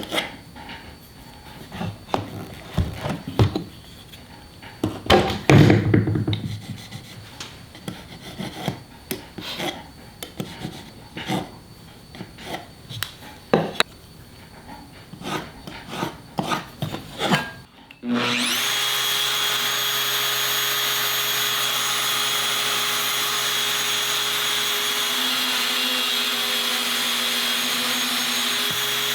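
Workshop handling noises, with wood and tools knocked and rubbed on a bench. About two-thirds of the way in, an electric power tool starts up and runs steadily at full speed with a constant hum and whine, without cutting.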